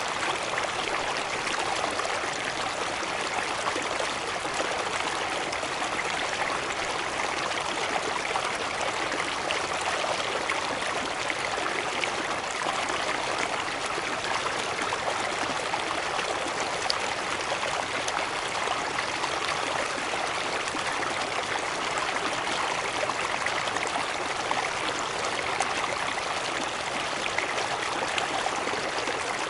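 Waterfall water rushing steadily, an even hiss with most of its energy in the middle and upper range and no breaks.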